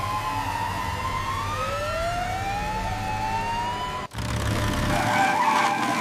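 Cartoon emergency-vehicle sirens wailing over a low engine hum: several overlapping tones glide up and down in pitch. They cut off suddenly about four seconds in and give way to a different, louder low rumble.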